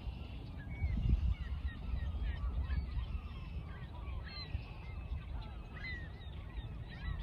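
A flock of birds calling over one another in many short, overlapping honking calls, with a low rumble underneath.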